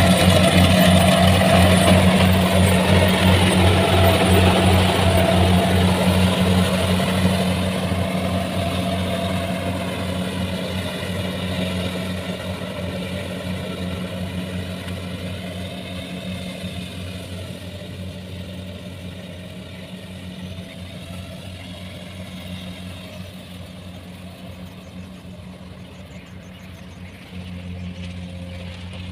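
Kubota rice combine harvester's diesel engine running steadily under load while harvesting, fading gradually as the machine moves away.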